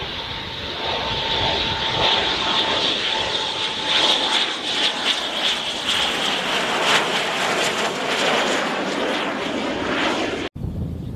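AIDC F-CK-1 Ching-kuo (IDF) fighter's twin turbofans whining and rushing as it flies low overhead on landing approach with its gear down; loudest around the middle as it passes. The sound cuts off abruptly near the end.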